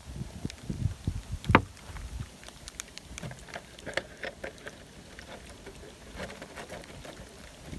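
Typhoon wind gusting on the microphone for the first couple of seconds, with scattered sharp taps and clicks throughout; the loudest tap comes about one and a half seconds in.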